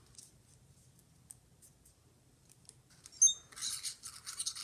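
Near silence for about three seconds, then a click with a brief squeak and scratchy rustling as a small Ozobot robot is handled and set down on a paper track map.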